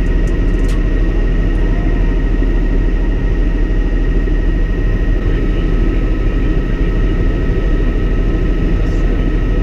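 Bell 206L LongRanger II helicopter in cruise flight, heard inside the cockpit: a steady, loud drone of rotor and turbine with two constant high-pitched whines above it.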